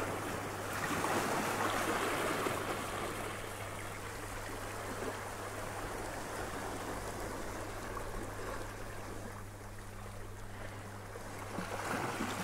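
Small sea waves washing and sloshing against shoreline rocks, swelling about a second in and again near the end.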